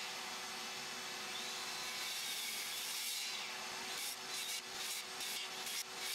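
Skil PWRCORE 20 XP 2x20V rear-handle circular saw with a 24-tooth framing blade cutting slices off a 4x4 post. At first it is one steady cut, then from about three seconds in it breaks into many short cuts in quick succession.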